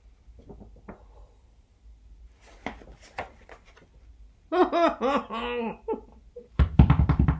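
A woman laughing and giggling with delight, in rapid, louder bursts near the end. Before that, a few sharp crackles of a large folded paper poster being opened out.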